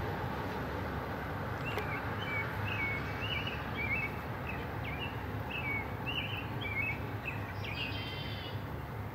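A songbird singing a run of short chirps, about three a second, starting about two seconds in and stopping near the end, over a steady outdoor background hiss.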